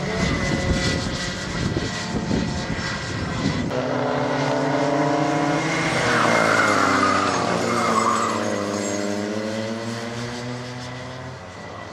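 Race car engine at high revs: a rough, noisy first few seconds, then a clear engine note that rises and falls in pitch as it revs and changes gear. It fades near the end.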